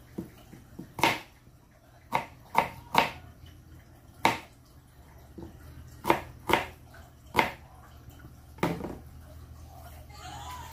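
Kitchen knife chopping a red onion on a plastic cutting board: about nine sharp knocks, irregularly spaced. Near the end a tap starts running.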